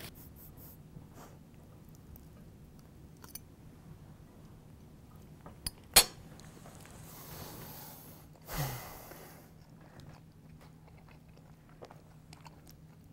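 A man quietly chewing a mouthful of spaghetti and meatballs, with scattered faint clicks and one sharp click about six seconds in, followed by a soft breathy hiss.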